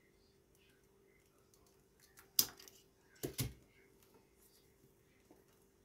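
Faint hum, then sharp clicks from pruning shears: a single snip about two and a half seconds in and a double clack about a second later as rolled-newspaper weaving tubes are trimmed and the shears are handled.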